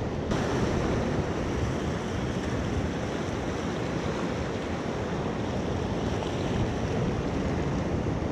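Steady wash of sea surf against a rocky shore, with wind buffeting the microphone.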